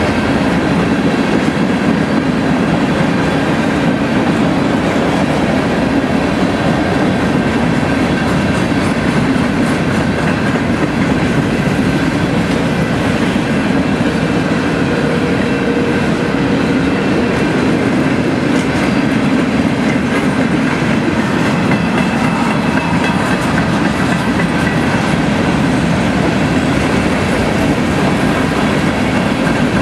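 Freight train's covered hopper cars rolling past close by: a loud, steady rumble of steel wheels on the rails, with faint thin high tones running through it.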